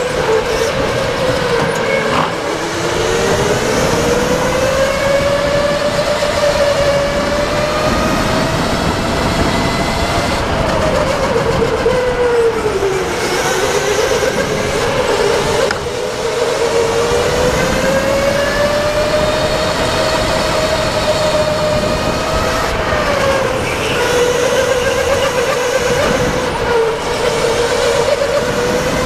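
Go-kart motor running under the driver while lapping, its pitch rising and falling with speed and dropping sharply several times as the kart slows for corners.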